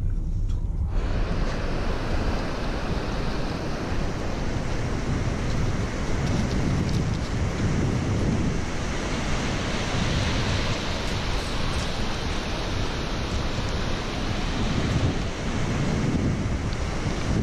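Surf washing onto a pebble-and-sand beach, with gusting wind on the microphone. For about the first second, before a sudden change, a car's low engine rumble from inside the cabin.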